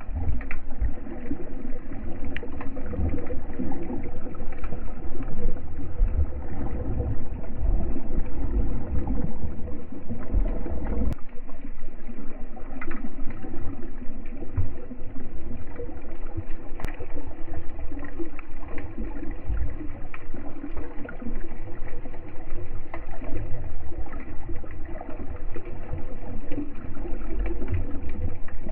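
Muffled underwater sound from an action camera in its waterproof housing: water sloshing and gurgling with low rumbling, and a few sharp clicks.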